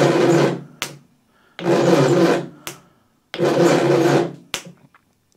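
Electric starter motor on a Reliant Regal 600cc engine cranking the engine over in three short bursts of about a second each, each ending in a sharp click as the battery lead is lifted off. The engine turns but does not fire, and the starter's drive pinion is sticking and not returning to disengage from the flywheel.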